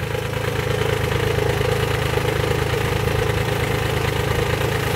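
Mini tractor's diesel engine running steadily at low speed as the tractor creeps forward.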